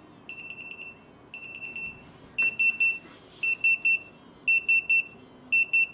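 Retekess TD173 restaurant guest pager beeping while it is being called: a high electronic beep repeating in quick groups of three, about one group a second, getting louder about two and a half seconds in.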